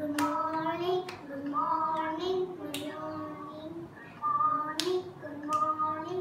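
A young girl singing, with a few sharp hand claps along the way.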